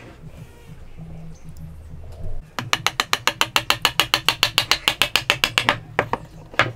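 A small hammer tapping rapidly and lightly on a wooden key, about ten taps a second for some three seconds, driving the key into an interlocking timber joint. A single harder knock follows near the end.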